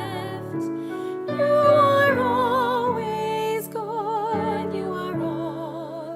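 Slow, gentle music: a held melody with vibrato over a steady accompaniment.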